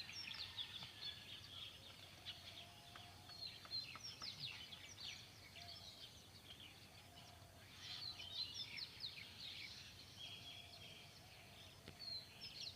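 Small birds chirping and twittering: bursts of quick, high, falling notes that come and go every few seconds, with a fainter, lower call now and then.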